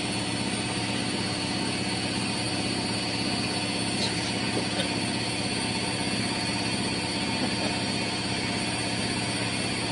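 Front-loading washing machine running: a steady motor hum with a faint regular pulse about twice a second.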